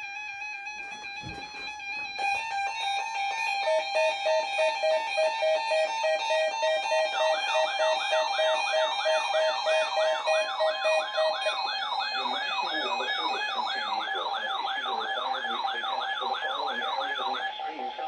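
NOAA weather radio alarm going off for a Required Weekly Test: a pulsing electronic beep starts about four seconds in, and a fast warbling siren-like tone joins a few seconds later and runs until just before the end, over a steady electronic tone.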